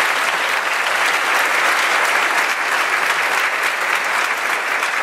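Audience applauding steadily: many hands clapping together in a dense, even crackle.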